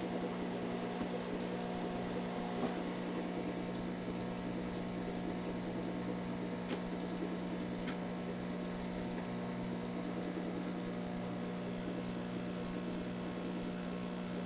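Aquarium hang-on-back power filter humming steadily over a faint hiss of moving water, with two faint ticks about a second apart near the middle.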